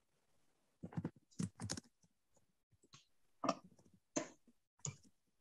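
Faint computer keyboard and mouse clicks: about eight short, irregular taps as someone works a laptop.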